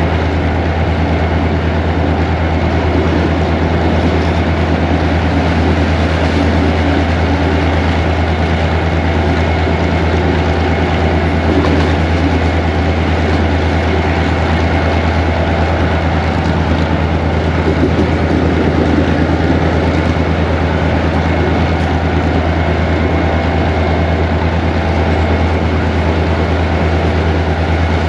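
GMU-15 diesel-electric locomotive heard from inside its cab, its engine pulling steadily under load as the train climbs a grade: a loud, constant low drone with steady rail noise over it.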